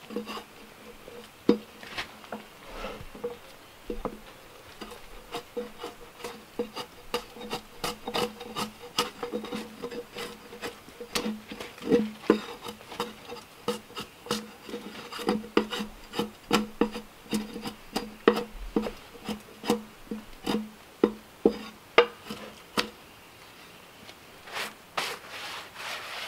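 Drawknife shaving bark and outer wood off a log in quick repeated strokes, about two scrapes a second, as the bark peels away in curls.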